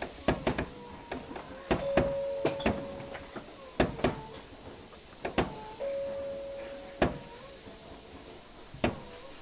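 Inside an Osaka Metro 30000 series subway car standing at a station: irregular sharp clicks and knocks, with a steady hum that comes and goes.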